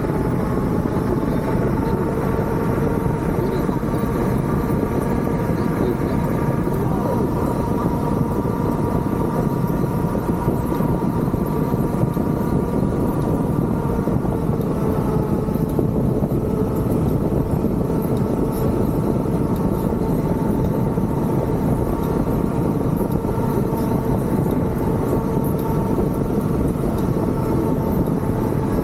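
Hurricane wind blowing hard and steadily, a deep rumble with a howl of several held tones that fade somewhat about halfway through.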